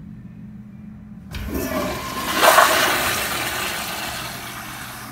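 Commercial flushometer toilet flushing: a sudden rush of water starts about a second in, is loudest around two and a half seconds in, then fades steadily as the bowl empties and refills.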